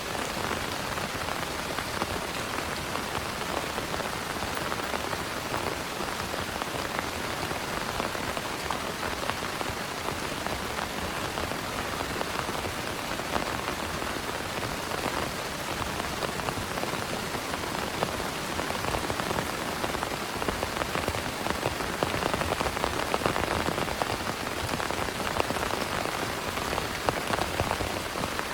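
Heavy rain falling steadily, a dense hiss of many drops striking a surface, growing a little louder in the second half.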